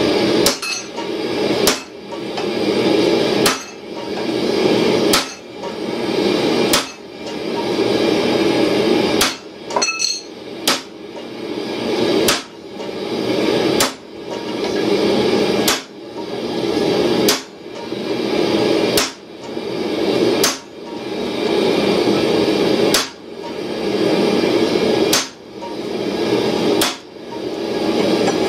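Hand hammer striking a red-hot steel tow ball on an anvil: slow, evenly spaced blows about every one and a half to two seconds, with a quick double hit about ten seconds in. A steady rushing noise runs underneath the blows.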